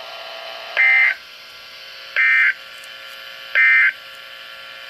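Emergency Alert System end-of-message data signal: three identical short bursts of two-tone digital screech, about a second and a half apart, over a faint steady hum. It marks the end of the alert.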